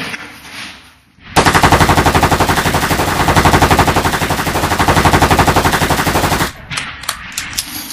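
Machine-gun fire sound effect: one long, unbroken burst of rapid shots that starts abruptly about a second in, lasts about five seconds and cuts off suddenly.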